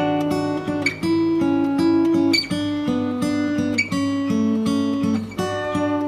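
Background music: an acoustic guitar picking a quick melody of short plucked notes over sustained bass notes.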